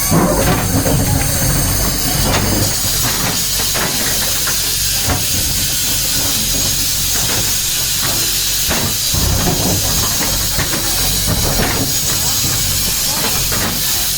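Diesel engine of a JCB 3DX backhoe loader running steadily under work, with a constant high hiss and scattered knocks and clanks.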